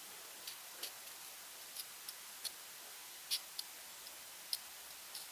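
Tip of a thin carving knife cutting petals into a firm white vegetable: faint, crisp clicks, about ten, coming irregularly.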